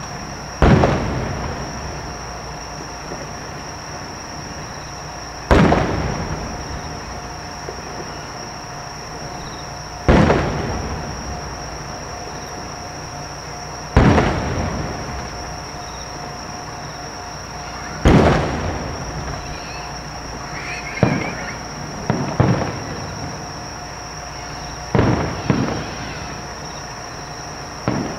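Aerial firework shells bursting: five big booms about four seconds apart, each trailing off in a rolling echo, followed in the second half by smaller, quicker bangs, several in close pairs.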